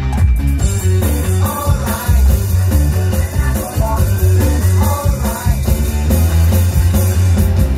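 Loud Mandopop dance music with a heavy, regular bass beat and a stepping melody line.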